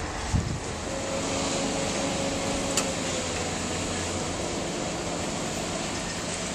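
Heavy construction machinery running steadily: a hum with a faint steady whine in it. A low thump comes about half a second in and a sharp click near three seconds.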